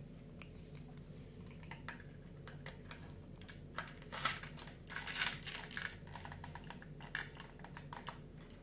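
Card pieces of a 3D puzzle model being handled and slotted together: a scatter of small clicks, taps and scrapes, busiest about halfway through.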